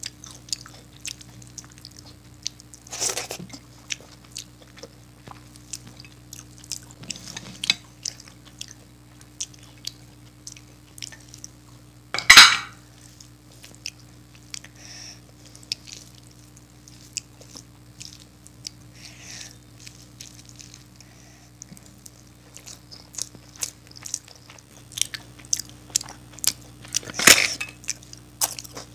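Close-miked hand-eating: fingers mixing khichdi and dum aloo on a plate, with chewing and soft wet mouth sounds that make many small clicks. A few louder sharp sounds stand out, the loudest about twelve seconds in.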